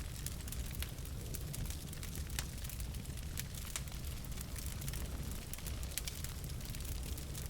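Wood fire burning in a fireplace: a steady low rumble of flame with many irregular sharp crackles and pops from the burning logs.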